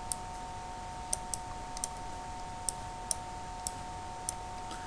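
Sharp, irregularly spaced clicks, about eight in five seconds, from a pen stylus tapping the writing surface while figures are written and underlined. A faint steady electrical hum runs underneath.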